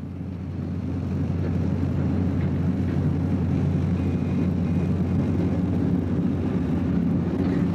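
Navy boat's engine running at speed: a steady low drone with a rushing noise. It fades in over the first second or two, then holds even.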